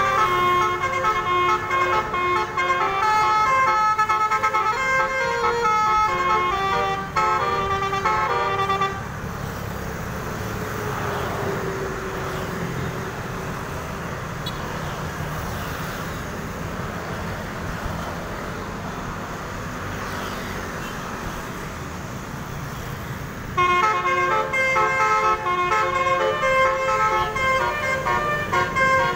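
Putra Prasojo bus's multi-tone 'telolet' air horn playing a quick tune, for about the first nine seconds and again from about 23 seconds in. In between, only passing traffic is heard.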